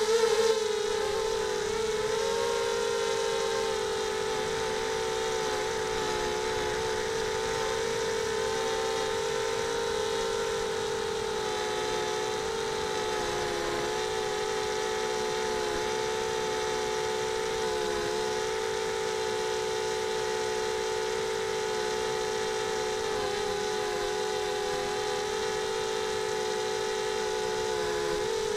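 Whine of a mini quadcopter's brushless motors and propellers (Sunnysky 2300 motors on a Mogo250 frame), close on the onboard camera's microphone. It holds a steady pitch with a few brief dips as the throttle eases.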